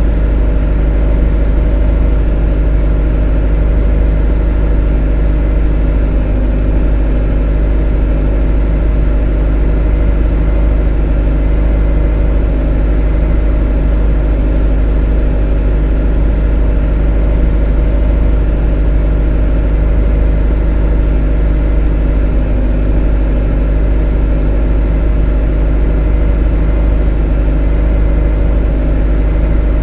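A motor running steadily: a loud, even low rumble with a hum of several steady tones above it, unchanging throughout.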